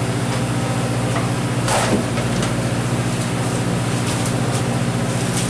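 Steady low drone of the fishing boat's engine running. About two seconds in there is a brief falling whoosh.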